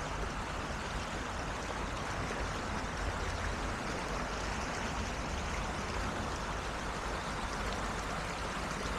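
Creek water flowing, a steady, even rushing.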